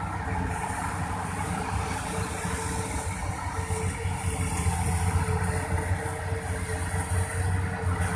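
Diesel engine of a Volvo EC480DL excavator running steadily with a low drone, growing a little louder around the middle.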